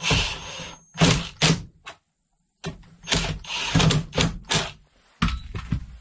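HART cordless drill driving screws through a plastic fuse block into plywood in several short bursts, twice cut off abruptly.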